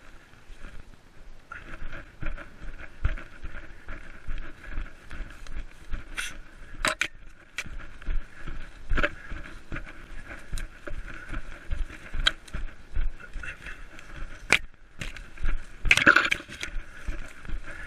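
Running footsteps through forest undergrowth, about two to three footfalls a second, with leaves and brush swishing against the runner and occasional sharp snaps and cracks. About sixteen seconds in comes a louder rush of rustling as the runner pushes through thicker vegetation.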